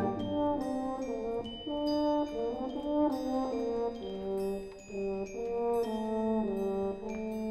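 High school concert band playing a soft, brass-led passage of sustained chords, the notes shifting every half second to a second, with a high held note above them.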